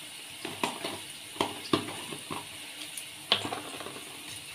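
Potatoes frying in hot oil in a pan: a steady faint sizzle broken by irregular crackles and pops, the loudest about three seconds in.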